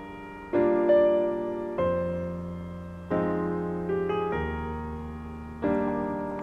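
Background piano music: soft chords struck every second or so, each ringing and slowly fading before the next.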